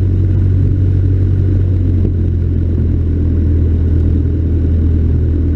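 Cessna 152's four-cylinder air-cooled Lycoming engine and propeller running steadily, a loud unbroken low drone.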